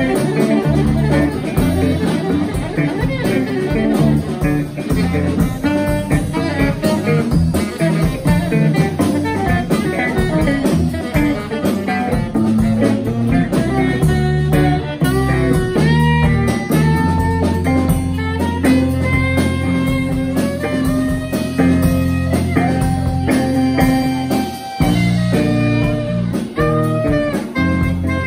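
Live jazz trio playing: saxophone melody over electric bass guitar and drum kit. About halfway through, the saxophone moves into long held notes.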